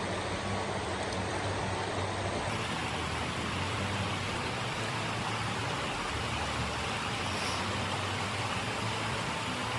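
Steady rushing roar of water falling from a 39 m waterfall.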